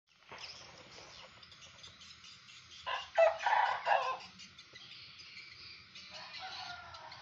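A quick series of loud animal calls about three to four seconds in, with birds chirping faintly throughout.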